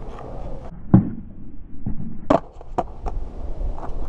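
Skateboard wheels rolling on concrete, with a heavy thump about a second in and several sharp clacks of the board hitting the ground around two and a half to three seconds in, as a flip trick is tried.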